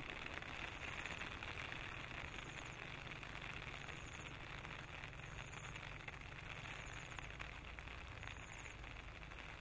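Faint forest ambience: a steady hiss over a low rumble, with a short high chirp repeating about every one and a half seconds.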